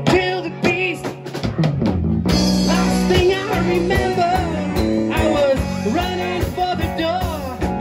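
Live rock band playing: acoustic and electric guitars, electric bass and a drum kit, with singing in the first second or so before the instruments carry on alone.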